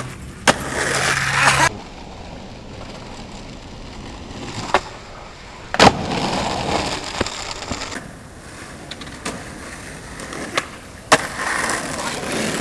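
Skateboard wheels rolling on asphalt, broken by sharp clacks of boards hitting the ground. The loudest clack comes about halfway through, with others near the start, just before it and near the end.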